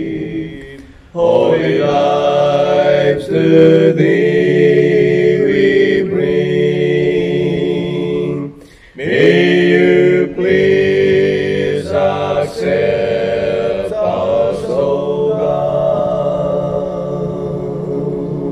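One man's voice multi-tracked into a slow a cappella hymn in four-part harmony, singing long held chords. The singing breaks off briefly twice, about a second in and near nine seconds, between phrases.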